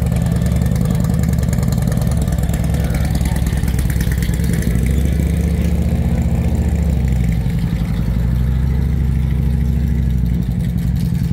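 Bagger motorcycle's engine running at idle, a steady low rumble whose pitch shifts slightly a few times.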